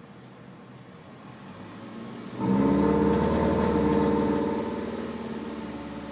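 2005 Nissan Altima 2.5-litre four-cylinder engine revved, with a snoring drone from the air-filter intake. The drone comes in suddenly about two and a half seconds in, holds for about two seconds, then fades as the revs drop. The owner links this noise to a loss of power.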